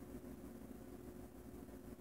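Near silence: faint steady room tone with a low hum, no handling sounds.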